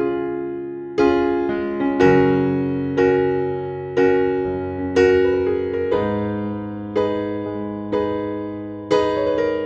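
Soft, slow piano music: a chord played about once a second, each one fading away before the next.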